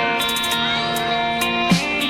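A hip-hop instrumental beat playing without vocals: a guitar-like melody over hi-hats, with a drum hit near the end.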